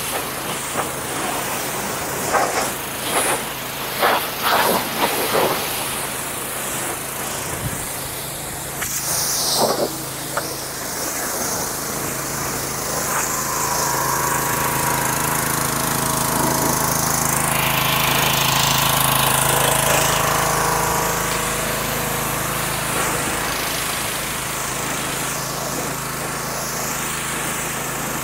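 Pressure washer running and spraying water, a steady hiss of spray over a low, steady hum from the machine. Short spatters come in the first few seconds, and a louder humming tone swells in the middle and then eases off.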